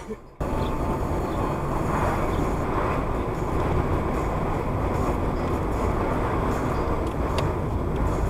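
Steady rumble of a car's engine and tyres, heard from inside the cabin while driving, picked up by a windscreen dashcam. It comes in after a short dip at the very start.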